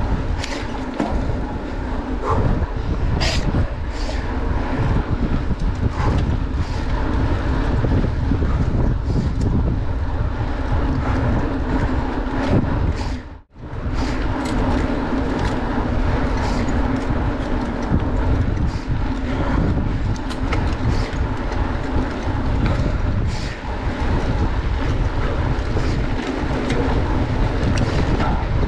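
Mountain bike rolling fast on a gravel forest road: wind rumbling on the camera microphone over steady tyre noise, with frequent clicks and rattles from the stones and the bike. The sound cuts out for a moment about halfway through.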